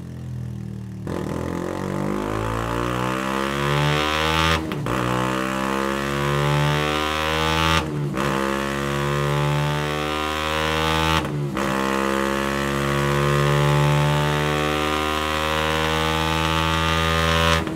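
Benelli BN 125's single-cylinder engine, breathing through a Scorpion stainless full exhaust system with Serket Taper silencer, on a rolling-road dyno: the engine note climbs in each gear, broken by three quick upshifts a few seconds apart, and drops off sharply near the end.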